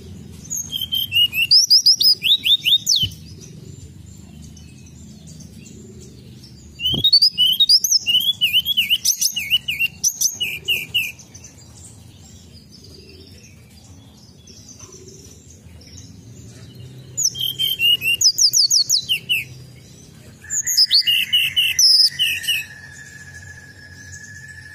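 Hill blue flycatcher singing in four bursts of quick, high whistled phrases and trills. A steady high single tone starts about twenty seconds in and holds.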